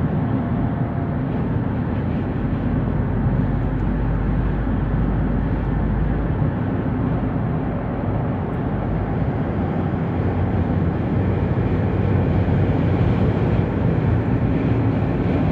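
Steady road noise of a car cruising at freeway speed, heard from inside the cabin: tyre and wind noise with a low rumble.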